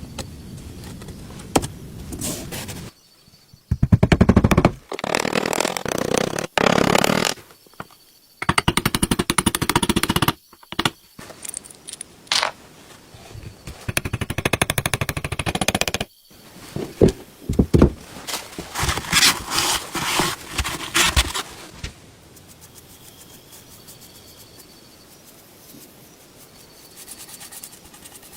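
Several bursts of rapid, repeated scraping and clicking, each a second or two long with short pauses between, from hands-on work on an antique sewing machine; it falls much quieter about 22 seconds in.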